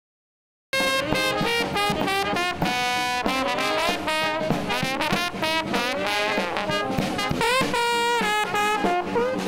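Marching brass band playing jazz, with trumpets, trombones, saxophone, sousaphone and a snare drum; it cuts in suddenly less than a second in and plays on loudly.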